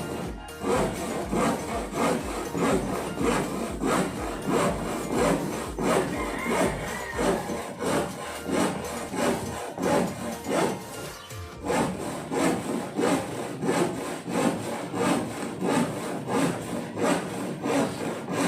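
Hand saw cutting through plywood in a steady rhythm of back-and-forth strokes, about one and a half a second.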